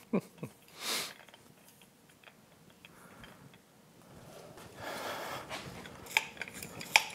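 Quiet handling of a lower-unit pressure tester: the hose fitting being worked into the gearcase vent port, a soft rustle about five seconds in, then a few sharp metallic clicks near the end as the hand pump with its gauge is taken up.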